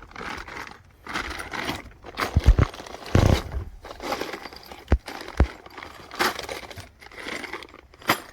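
Small metal hardware parts clinking and rattling as they are handled, with several sharp knocks scattered through.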